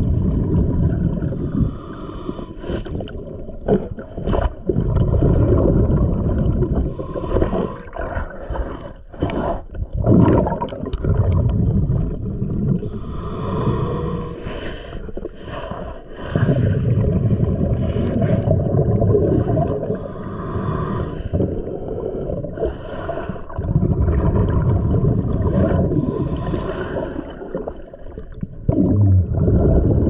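A scuba diver's regulator heard underwater: long bubbling exhalations rumble out in stretches of several seconds, alternating with quieter, hissing inhalations, in a slow breathing rhythm.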